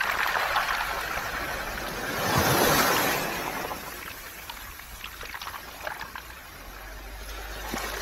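Small waves washing up a beach of round pebbles: one surge about two and a half seconds in, then the water drains back through the stones with a scatter of small clicks and rattles.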